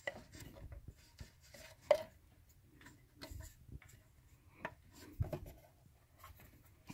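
Rubber air hose being pushed and worked by hand onto the plastic outlet port of a Mercedes secondary air pump: faint rubbing with scattered soft clicks and knocks, the sharpest about two seconds in.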